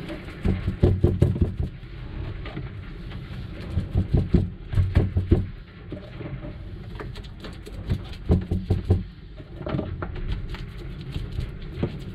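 A paintbrush banging down onto fibreglass cloth, stippling it into place. It comes in quick runs of dull thuds, several a second, with short pauses between runs. The thuds boom because the cloth is laid over a hollow bilge access hatch.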